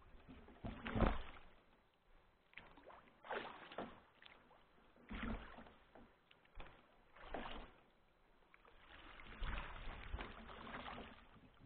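Kayak paddle strokes, the blade dipping and pulling through the water about once every two seconds.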